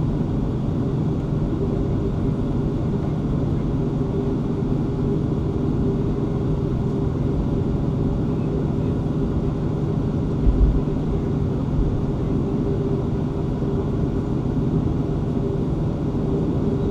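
Boeing 737-500 jet engines running at taxi power, heard inside the cabin as a steady drone with low hum tones. A brief low thump comes about ten seconds in.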